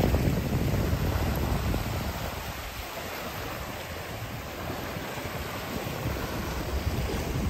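Small waves washing onto a sandy beach, with wind rumbling on the microphone. The wind is heaviest at the start, eases over the first couple of seconds and picks up again near the end.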